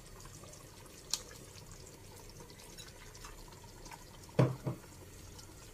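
Coconut-cream chicken curry simmering in a frying pan with a soft, steady bubbling. There is a sharp tick about a second in, and two low knocks in quick succession about four and a half seconds in.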